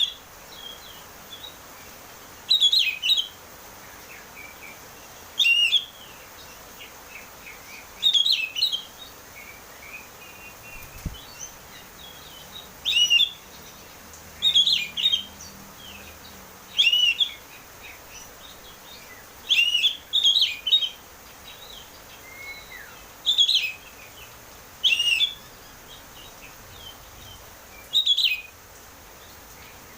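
Oriental magpie-robin (kacer) singing: short, loud, high whistled phrases with quick rising and falling sweeps, repeated about every two to three seconds, some of them doubled.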